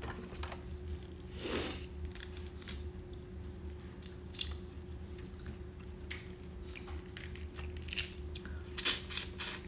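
Boiled crawfish being broken and peeled by nitrile-gloved hands: scattered small shell cracks and crackles, with a louder cluster of cracks near the end and a brief louder rush of noise about one and a half seconds in, over a steady low hum.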